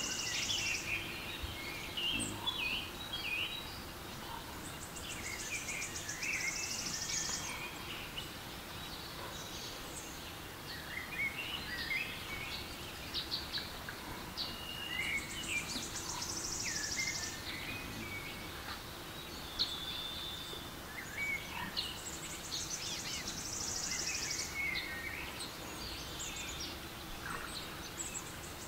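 Forest ambience from a relaxation-sounds app: many birds chirping and twittering over a soft background, mixed from the app's forest and birdsong tracks. A high, rapid, buzzing trill comes and goes every several seconds.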